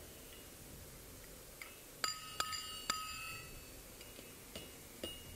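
Hammer striking a hot 8 mm mild steel bar on a steel anvil to roll up a spiral. A light tap comes first, then three hard blows about two seconds in, each leaving the anvil ringing, then two lighter taps near the end.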